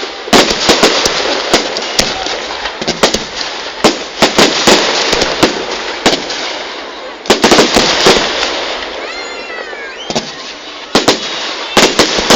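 Fireworks going off: many sharp bangs and crackles in quick succession over a steady hiss, with a short gliding whistle about nine seconds in.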